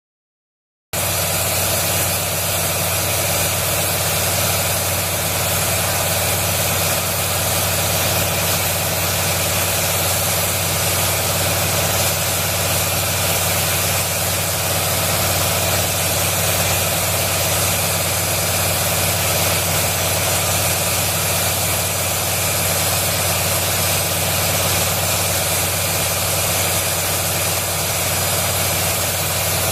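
Fan blowing air along the water surface of a capped wind-wave tank to raise waves: a steady hum with a low drone, starting abruptly about a second in.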